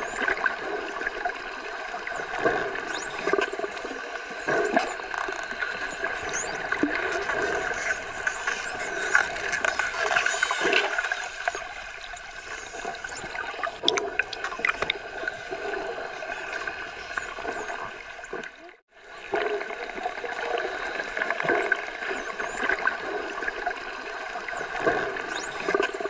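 Dolphins vocalizing underwater: many short, high-pitched whistles rising and falling in pitch, with scattered clicks over a steady watery hiss. The sound drops out briefly about three-quarters of the way through.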